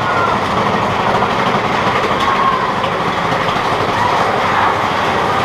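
Mine-train roller coaster running fast through a tunnel: a steady loud rumble and clatter of its wheels on the track, with faint wavering squeals over it.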